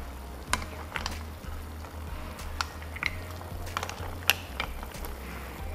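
A spatula clacking against a pan and mussel shells as a heap of leafy greens is stirred, in a string of irregular clicks; the sharpest comes about four seconds in. Background music with a low bass line runs underneath.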